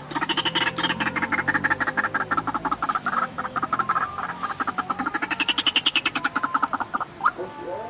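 White-breasted waterhen calling: a long, rapid run of harsh, repeated notes, many a second, that breaks off near the end.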